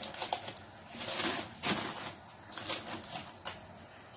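Short, soft rustles of parchment paper on a baking tray being handled as a cookie is set down, several in a row with the loudest about a second in.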